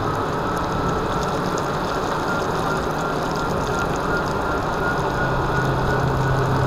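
Solowheel electric unicycle rolling over wet asphalt, heard from right beside the wheel: a steady hiss of the tyre through the wet road surface, with a thin, steady high whine from the hub motor. A low hum joins about five seconds in.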